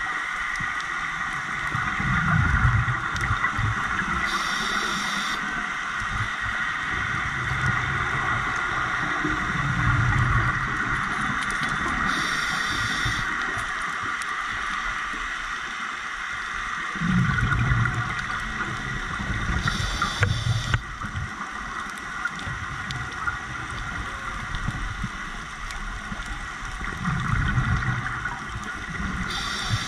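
Scuba diver breathing through a regulator, heard through a GoPro's underwater housing: low bubbling bursts of exhaled air, each followed a couple of seconds later by a short hiss of inhalation, about one breath every eight seconds, over a steady hiss.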